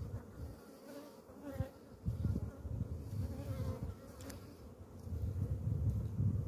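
Buzzing of a crowded honeybee colony on an open hive as a brood frame is handled, with uneven low rumbles on the microphone that are loudest about two seconds in and again near the end.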